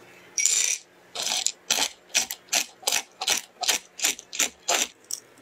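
Roasted pistachios tipped from a glass bowl onto a wooden cutting board with a brief rattle, then a knife chopping them on the board in a steady run of about ten sharp chops, two to three a second.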